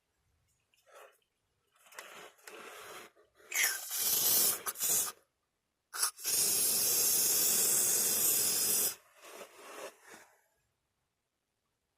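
Aerosol can of anti-squeak lubricant spraying onto a car's anti-roll bar bushings, hissing in bursts: a few short sprays, one long spray of about three seconds, then a couple of short puffs. The lubricant is meant to stop the bushings creaking and crunching in cold weather.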